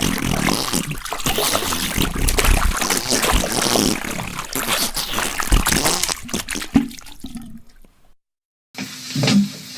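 Wet, liquid trickling and splattering, the sound of diarrhoea. It cuts off abruptly after about eight seconds, and a short, quieter sound with a low steady hum follows near the end.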